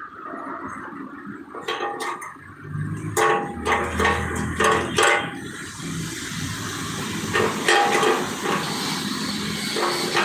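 Stick-welding arc on a thin steel diesel tank: a few short crackling strikes as the rod catches, then a steady crackling hiss from about six seconds in.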